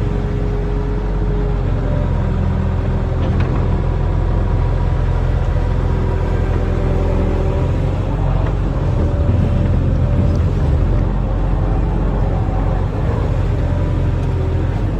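Barge-mounted excavator's diesel engine running steadily: a low, even drone, with a few higher tones that come and go.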